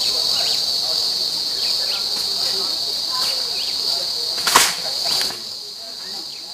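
Steady high-pitched chorus of insects, with one sharp knock about four and a half seconds in.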